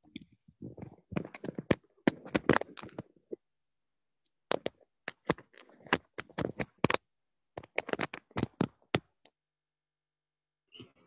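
A phone or webcam being handled on a video call, heard through its own microphone: irregular runs of clicks, knocks and scrapes in two clusters, then a single knock near the end.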